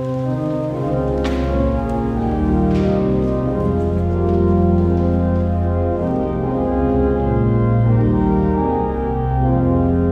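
Church organ playing slow, held chords: the introduction to the Gospel Acclamation at Mass.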